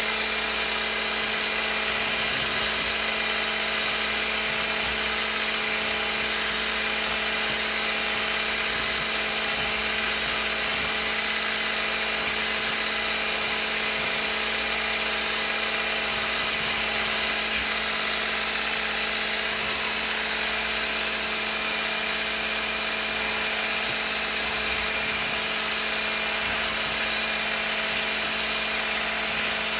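Mueller electric hand blender with a whisk attachment running steadily at one speed, whipping a thin melted shea butter mixture in a stainless steel bowl: an even, high motor whir that doesn't change.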